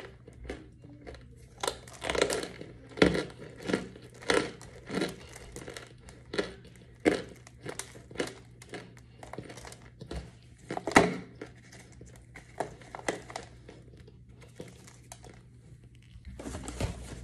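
Close-up crunching and crumbling as pieces of a chalky white powder brick are bitten and chewed: sharp, crisp crunches about once or twice a second, growing sparser over the last few seconds.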